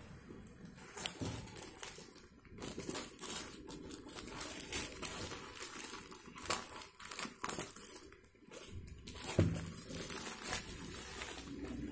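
Plastic courier mailer bag being torn open by hand, the polythene crinkling and ripping in irregular crackles.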